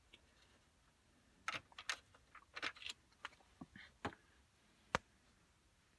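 Faint, scattered small clicks and rustles of hand work with a screwdriver on the dashboard radio's mounting screws and plastic trim, with one sharp click about five seconds in.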